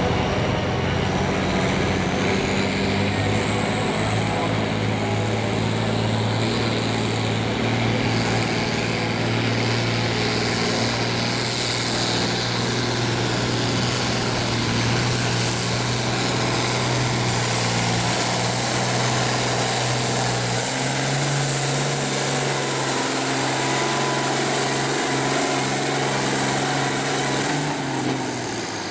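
Farm tractor engine running hard under load while pulling the sled down the track. The engine note holds steady, steps up slightly about two-thirds of the way through, and drops away near the end. A faint high whine rises over the first several seconds.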